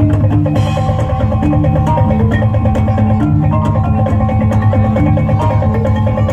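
Live traditional music: a melody of short plucked notes over drums and hand percussion at a steady beat.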